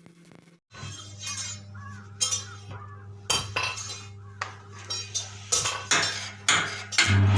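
Arc welding machine humming steadily under irregular crackle and sharp metallic clinks, starting about a second in and getting louder toward the end.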